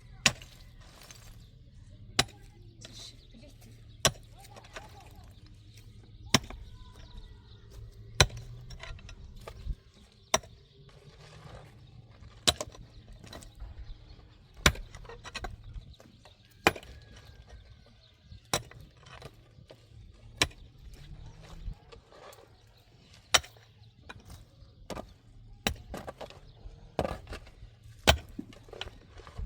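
Sharp chopping or striking blows, one about every two seconds, over a faint steady low hum.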